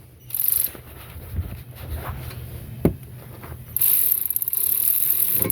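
Power ratchet running in short bursts, driving the 14mm caliper bolts back in on a brake caliper: a brief run half a second in, a sharp click near 3 s, and a longer run with rapid ticking from about 4 s.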